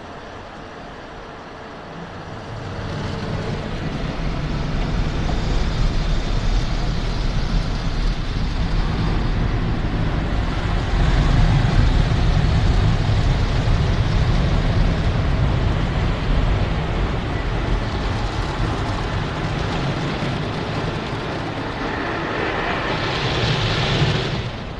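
Automatic gantry car wash heard from inside the car: the rotating brushes start scrubbing the body about two seconds in, a loud steady rumble with water splashing on the glass. Near the end a hissing swell rises and then drops off suddenly.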